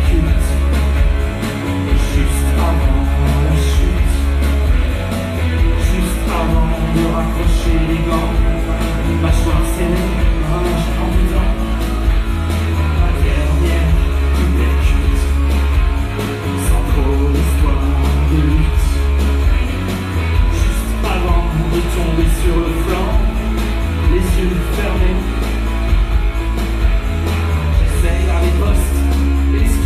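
Live rock band playing: electric guitar over a heavy, pulsing bass and drums with cymbal hits, loud and continuous.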